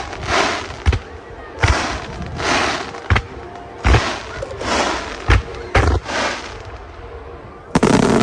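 Aerial firework shells bursting in quick succession: sharp booms about every second, between them crackling, hissing bursts, with a dense cluster of booms near the end.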